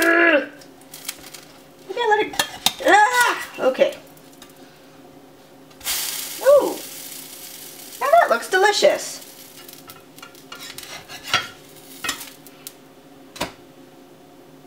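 Metal spatula scraping against a stainless steel frying pan in short squeaky strokes as a pancake is worked loose and flipped. About six seconds in there is a burst of sizzling as the pancake lands in the hot pan, then more scraping as it is lifted out.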